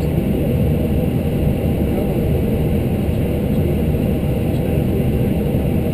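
Steady cockpit noise of an Airbus A319 taxiing, a continuous low rumble from the engines at taxi power with faint steady high tones above it.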